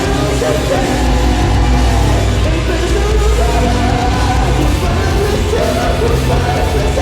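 Screamo/post-hardcore band playing loud and dense, with a heavy low end and wavering sustained guitar lines over it.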